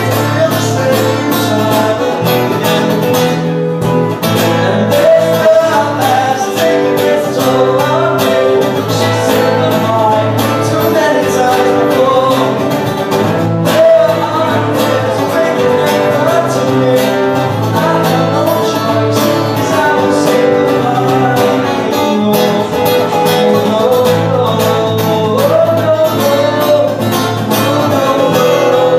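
A live acoustic duo: two acoustic guitars strummed steadily, with a man's voice singing over them.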